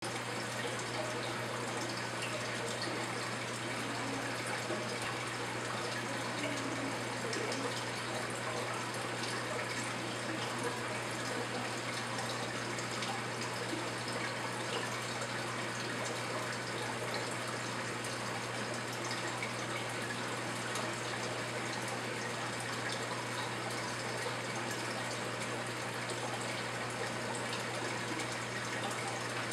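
Steady rush of circulating aquarium water from the tank's filter or pump return, with a constant low hum underneath.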